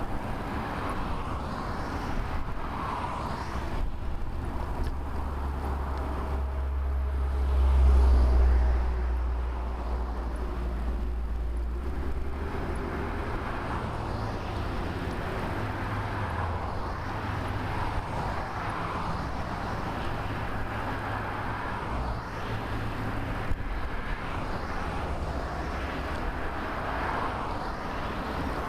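Motor traffic passing a moving bicycle. A vehicle goes by with a deep low rumble that swells loudest about eight seconds in, and other passing cars come and go more softly.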